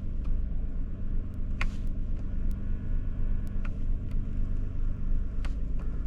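Kia Sorento running with a steady low engine hum. Over it come a few sharp clicks and a faint whine as the power side mirror is moved with the repaired mirror switch.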